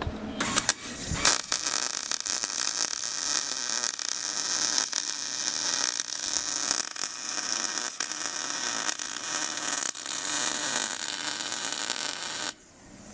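Electric arc welding: a few short sputters as the arc is struck, then a steady crackling hiss of the arc laying a weld bead for about eleven seconds, cutting off suddenly near the end.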